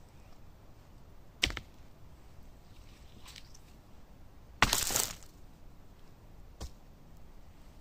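Dry wooden sticks being snapped and tossed: a sharp crack about a second and a half in, a longer, louder crackling break about five seconds in, and a small knock shortly after.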